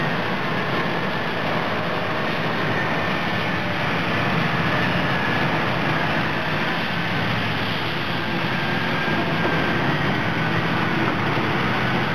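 Caterpillar 657E twin-engine scrapers working as a coupled push-pull pair: a steady heavy diesel drone under load, with a faint high whine that drifts slightly lower.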